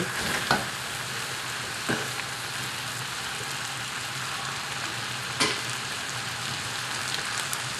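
A stir-fry of eel, onions and spaghetti sizzling in a hot wok, a steady frying hiss. A metal spatula knocks against the wok a few times: about half a second in, about two seconds in and about five and a half seconds in.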